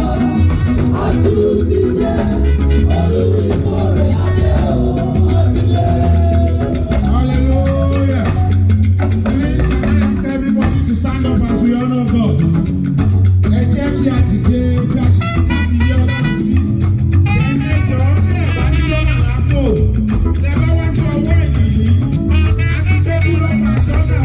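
Loud, lively music with singing over a steady, heavy bass line.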